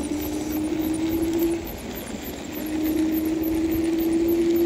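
Electric scooter hub motor whining under throttle, its pitch creeping up as speed builds. The whine drops out for about a second midway, then comes back and climbs again, over a low rumble. This is the S9 Max's hub motor that the rider calls blown, still driving.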